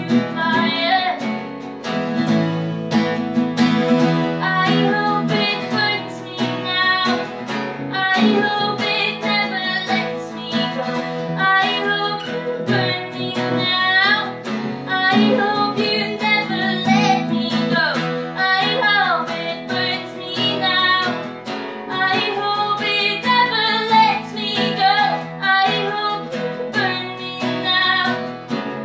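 A woman singing a song live while playing an acoustic guitar, with the guitar's chords struck in a steady rhythm under the melody.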